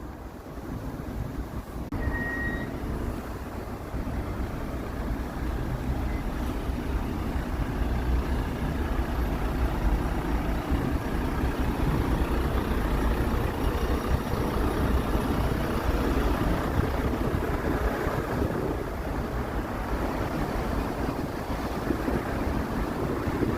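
Steady low rumble of road vehicles, with one short high beep about two seconds in.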